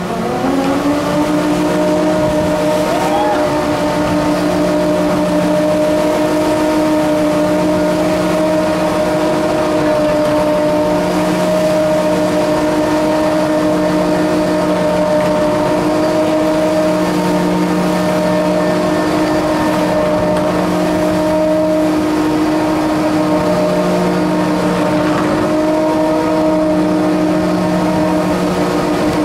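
Ship's davit winch motor starting up about a second in, its whine rising and then holding steady as it hoists a lifeboat-type passenger tender.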